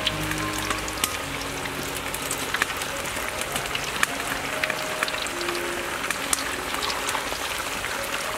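Taro sticks deep-frying in hot oil: a steady sizzle dense with crackling and popping. A fresh batch of raw taro sticks is tipped into the oil about halfway through.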